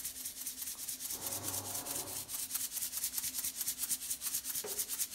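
Plastic shaker of Maggi All Purpose Seasoning being shaken hard over raw chicken, its granules rattling out in a quick, even rhythm of scratchy strokes.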